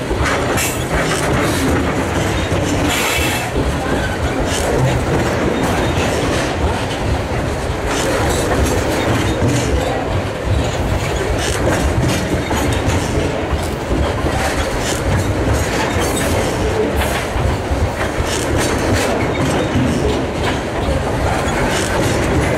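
Freight train of covered hopper wagons rolling past close by: a steady loud rumble and rattle of wagons and wheels on the rails, with brief high-pitched wheel squeals now and then.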